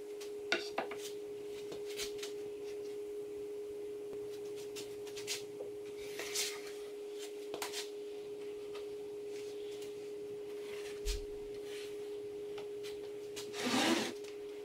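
A steady, even hum on one pitch throughout, with a few sharp clacks of wooden boards being handled on a workbench and a longer scrape of wood near the end.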